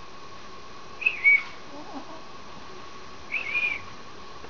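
A sleeping pet's whistling snore: a short high whistle with each breath, twice, about two seconds apart.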